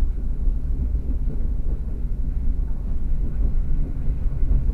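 Passenger train running at speed, heard from inside the carriage: a steady low rumble of wheels and running gear on the track.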